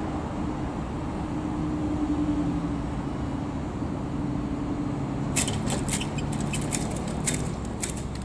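Level crossing barrier mechanism running with a steady whine as the booms lift, stopping about five seconds in. It is followed by a run of a dozen or so sharp clicks, over a low rumbling background.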